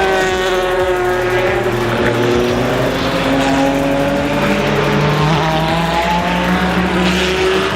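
Several race car engines running at high revs on the circuit, their overlapping notes sliding slowly down in pitch and then climbing again.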